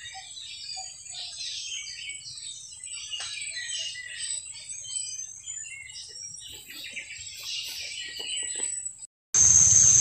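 A dense chorus of many wild birds chirping and calling at once in forest canopy, with a lower note repeated about twice a second during the first second or so. Near the end it cuts off abruptly to a loud, steady, high-pitched insect drone of cicadas or crickets.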